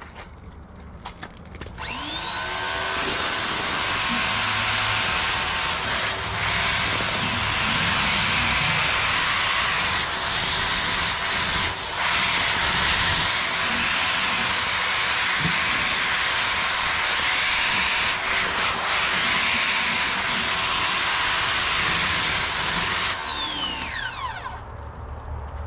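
Pressure washer spraying through a wheeled multi-jet undercarriage sprayer, water jets hissing against a pickup truck's underside. The machine's whine rises in pitch as it starts about two seconds in, holds steady, and falls away as it shuts off near the end.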